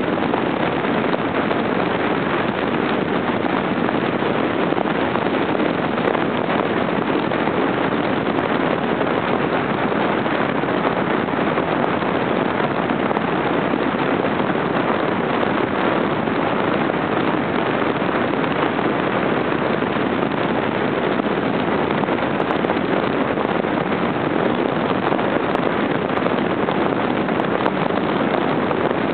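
Steady rush of wind on the microphone mixed with road and engine noise from an Audi Ur Quattro cruising at speed, unchanging throughout with no distinct engine note or gear changes standing out.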